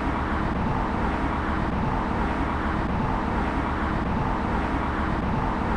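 Steady noise of road traffic.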